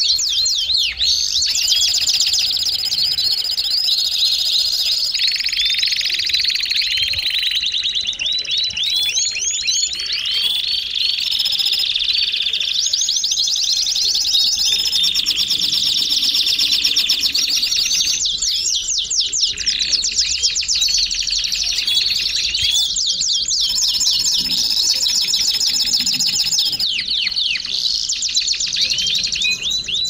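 Belgian canary singing without a break: fast repeated trills and rolls of short rising notes, mixed with held whistled notes.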